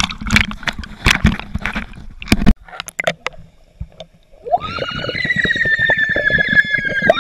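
Water splashing and sloshing against a waterproof action camera bobbing at the surface. After a short lull, once the camera is under water, a steady whine with rapid pulsing comes in and sags slightly in pitch.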